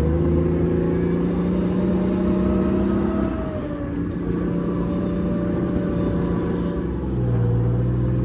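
British Chieftain tank's Leyland L60 two-stroke multi-fuel engine running as the tank drives across rough ground, heard from on top of the turret. The engine note dips briefly about three and a half seconds in and changes again about seven seconds in.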